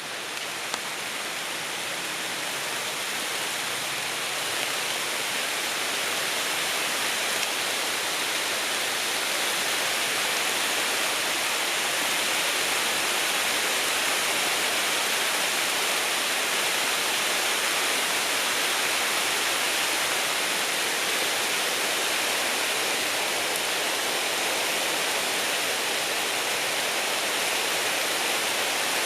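Water of a small creek running, a steady rush that grows louder over roughly the first ten seconds and then holds.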